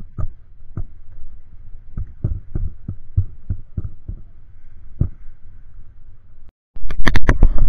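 Muffled, irregular dull knocks over a low rumble, about fifteen of them, from bumps against a small boat. Near the end a short dropout gives way to a run of much louder, sharper knocks.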